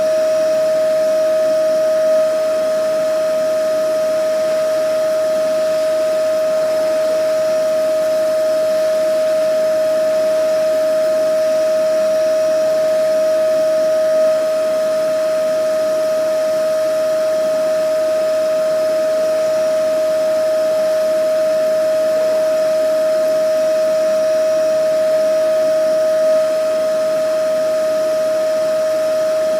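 Vacuum cleaner running steadily: one constant whining tone over an even rush of air, without a break.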